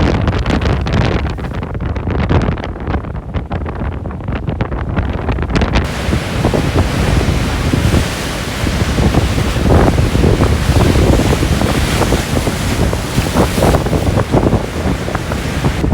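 Strong wind buffeting the microphone with a heavy, gusting low rumble, over the hiss of sea waves that grows fuller about six seconds in.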